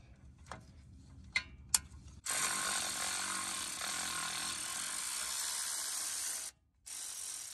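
Cordless electric ratchet spinning a bolt through the rough, dirty threads of the front hub's caliper bolt hole. It runs steadily for about four seconds, stops briefly, then runs again near the end, after a few light clicks of the tool being fitted.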